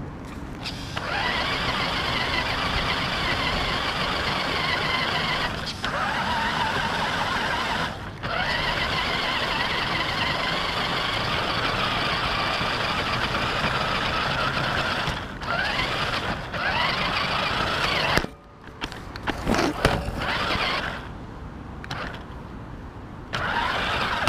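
Electric motor and gearbox of a rock crawler RC car whining in long runs, cutting out briefly several times, with a stretch of irregular knocks and scrapes about three quarters of the way through.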